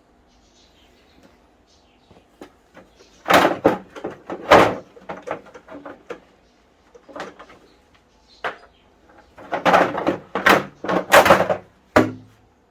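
Exercise bike parts knocking and clattering as the bike is worked on and taken apart, in two loud bursts of bangs with quiet stretches between.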